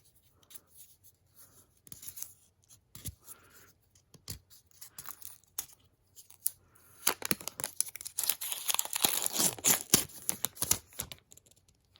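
Scattered clicks and rustles of handling packaging, then, about seven seconds in, a dense few seconds of tearing and crinkling as the wrapping is pulled off a 30-watt Apple USB-C power adapter.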